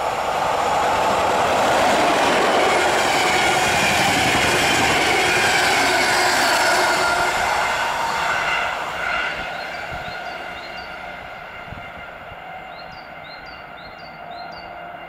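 An EU07 electric locomotive and its InterCity coaches pass at full line speed. The rolling rush builds to its loudest in the first half, carrying a high tone that falls in pitch as the train goes by, then fades away as the coaches recede. A small bird chirps a few times near the end.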